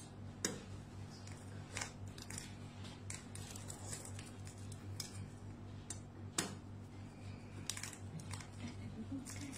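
A durian's spiny husk being pried open with a knife: scattered sharp cracks and snaps as the husk splits and the blade works into the seam, over a steady low hum.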